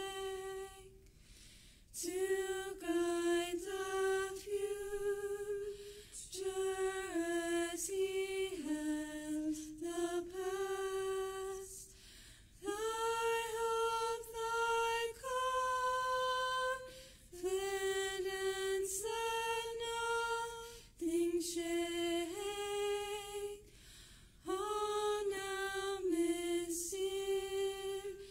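A small group of women singing unaccompanied, their voices together on one melody in phrases of held notes with short breaths between.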